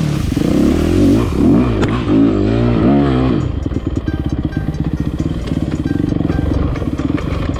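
Yamaha YZ dirt bike engine revved up and down several times in quick succession, then dropping about three seconds in to a steady, quieter idle.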